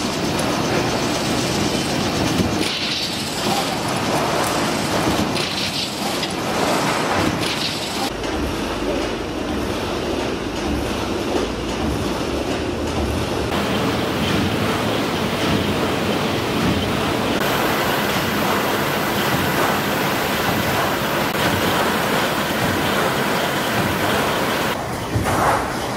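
Tinplate processing machinery running: a steady mechanical rumble and clatter of roller lines, its tone shifting abruptly a few times.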